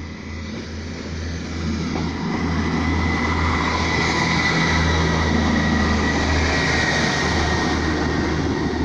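ScotRail Class 158 diesel multiple unit pulling away under power, its diesel engines making a steady low rumble that grows louder about two seconds in and holds, with a thin high whine above it.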